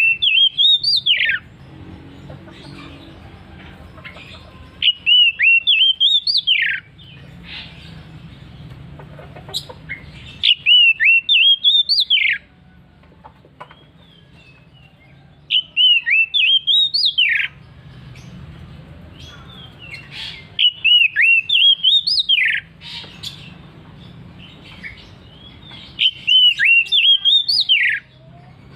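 Oriental magpie-robin (kacer) singing: a loud phrase of rapid, rising whistled notes, repeated six times at about five-second intervals, each phrase lasting about two seconds.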